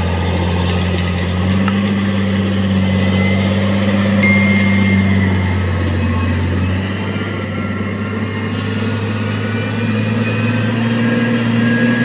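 Diesel engine of a LiuGong wheel loader working a gravel pile. Its engine note steps up about a second and a half in, drops back a little past the middle, and climbs again near the end as the loaded bucket is raised. A few sharp clicks and a brief squeak can be heard over it.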